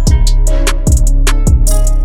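Background music with a steady beat: drums and plucked guitar.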